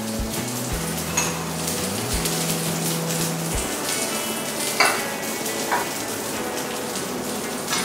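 Panang sauce sizzling in a hot nonstick frying pan on a gas burner while a spoon stirs it. A few sharp clicks of metal against the pan come about one, five and six seconds in.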